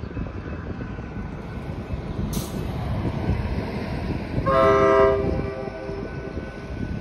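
Locomotive air horn on an approaching Union Pacific freight train, one blast of about a second, sounded near the end as the train nears the level crossing, over a steady low rumble.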